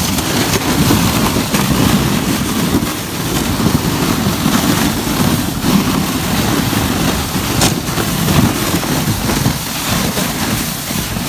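A sled towed over snow behind an ATV: a steady rushing scrape of the sled on the snow mixed with the ATV's engine running ahead. A few knocks come over bumps, the clearest about two-thirds of the way through.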